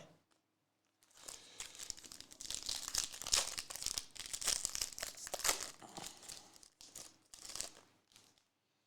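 Trading-card pack wrapper crinkling and tearing as a pack is opened, a run of dense crackling from about a second in until near the end.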